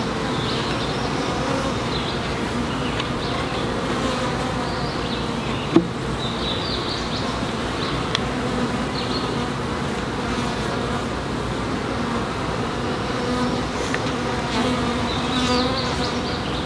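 A large number of honeybees buzzing steadily around an opened hive, a dense even hum. A single sharp knock sounds about six seconds in.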